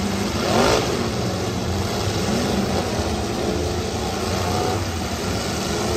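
Demolition derby cars' engines running together, with one rev rising in pitch about a second in.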